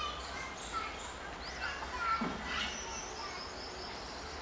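Outdoor background ambience: scattered short bird chirps and a faint distant voice, joined about three seconds in by a steady high buzz like an insect.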